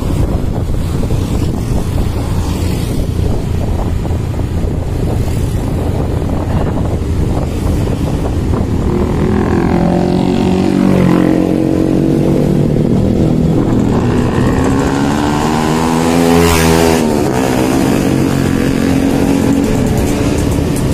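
Motorcycle riding noise heard from the rider's seat: the bike's engine running steadily under a constant rumble. In the middle, the engines of nearby motorbikes and traffic rise and fall, and one vehicle passes close about two-thirds of the way through, its pitch bending down as it goes by.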